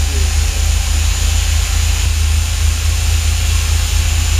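Sportfishing boat's inboard engine idling steadily with a deep, even rumble, just started and running.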